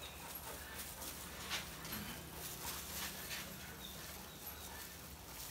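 Faint sounds of a large dog being handled: soft panting and the rustle of gloved hands working flea powder into its coat.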